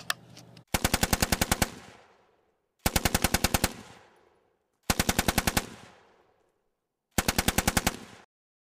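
Four short bursts of machine-gun fire as a sound effect. Each is about ten rapid shots in under a second with an echo trailing off, and the bursts come about two seconds apart.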